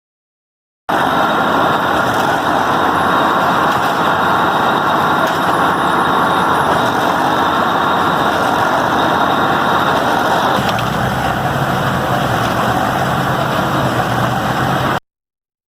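Restored New Holland Model 75 hay baler running, its engine and machinery making steady, loud mechanical noise. About eleven seconds in the sound shifts, with a deeper hum coming up.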